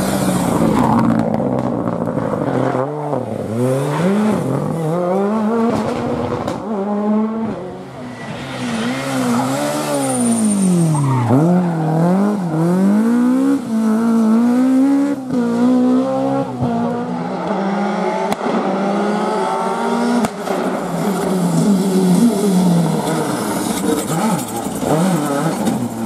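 Rally car engines revving hard, their pitch climbing and dropping again and again with gear changes and lifts off the throttle, across several cars in turn.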